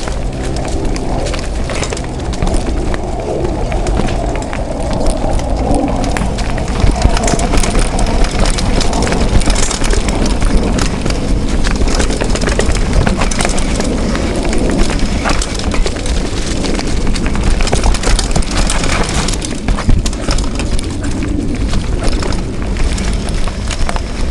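Mountain bike rattling and clattering over a rough dirt trail at speed: a dense, continuous run of knocks and clicks over a loud low rumble.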